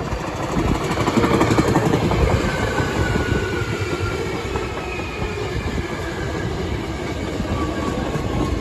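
Hankyu 8300 series electric train passing close by: wheels clattering and rolling on the rails, getting louder over the first second or two. A whine from its Toyo Denki VVVF inverter and traction motors, several thin tones together, falls slowly in pitch through the rest of the pass.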